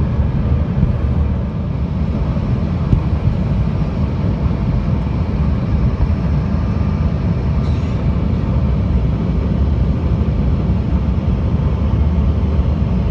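Airliner cabin noise in flight: a steady, deep rumble of engines and rushing air, heard inside the cabin.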